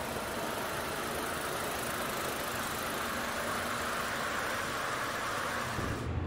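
Steady mechanical noise of a truck assembly hall: an even hiss and hum with no distinct beats or tones. Near the end it turns lower and more rumbling.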